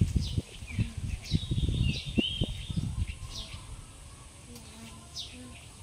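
A bird chirping outside, short high calls that slide downward, repeating about once a second. Over the first three seconds come a run of low knocks and bumps, the loudest sounds, which then die away.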